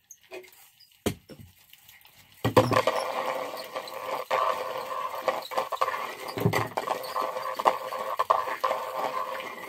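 Fishing reel being cranked to wind new line onto its spool: a steady gear whir with frequent clicks, starting about two and a half seconds in after a couple of single knocks.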